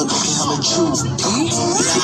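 Music with a vocal line, playing steadily.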